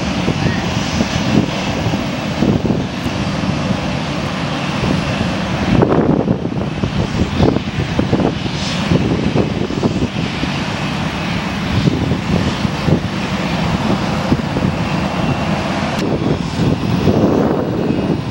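Business-jet turbofan engines running at taxi: a steady jet rush with a rough, rumbling low end. It changes abruptly about two seconds before the end.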